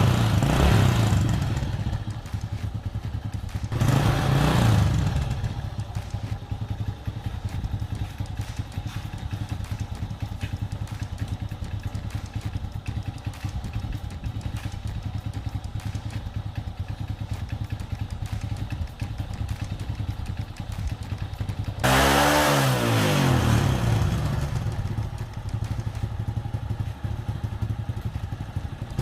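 Honda Supra X 100 motorcycle engine idling as it warms up. It is revved briefly near the start and about four seconds in, then given a longer rev about 22 seconds in that rises and falls back to idle.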